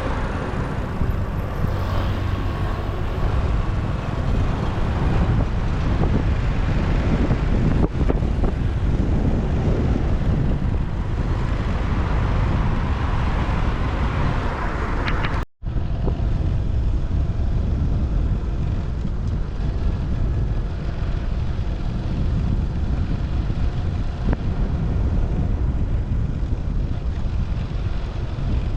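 Motorcycle riding through city traffic: engine and road noise under steady wind rumble on the microphone. The sound drops out for an instant about halfway through, then carries on.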